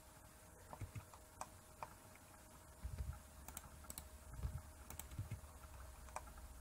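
Faint, irregular clicks of computer keyboard keys being pressed, about a dozen over several seconds.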